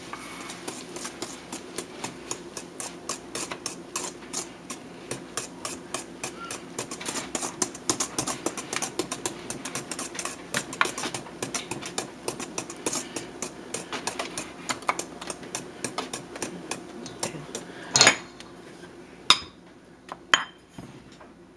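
Wire balloon whisk beating egg yolks and sugar in a stainless steel bowl, its wires clicking rapidly and evenly against the metal. Near the end the whisking stops and three louder, separate clinks of metal on metal follow.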